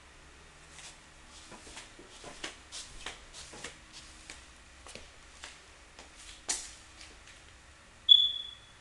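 Light clicks and knocks from someone walking over a tile floor and handling things, a dozen or so irregular taps with a sharper knock about six and a half seconds in. Near the end a single short, high electronic beep sounds and dies away quickly, the loudest sound here.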